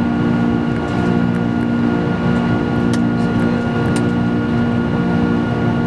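Steady cockpit noise of a Boeing 747-400 in the climb after takeoff: a constant rush of airflow and engine noise under a steady hum of several tones, with a few faint clicks.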